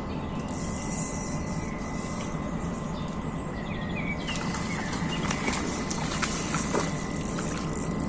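Riverside ambience: a steady low rush with a constant thin high whine, and a few birds chirping briefly about three to four seconds in, followed by scattered light clicks.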